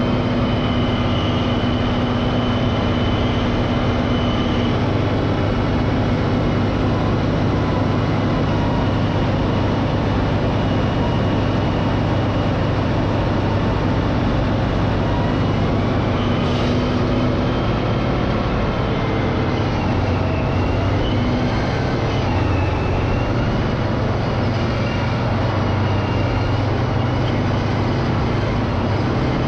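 Caterpillar 637C scraper's diesel engine running steadily, with a high whine above it that wavers in pitch.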